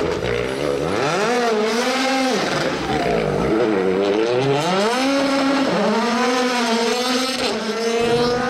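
Rally car engine revving hard, its pitch climbing and dropping several times with throttle and gear changes.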